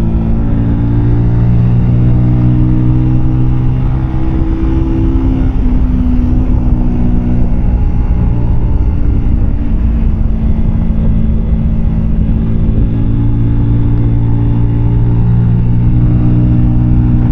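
Keeway K-Light 125's V-twin engine running at road speed with a steady note. The note shifts and becomes rougher for a few seconds from about four seconds in, then settles into a steady note again.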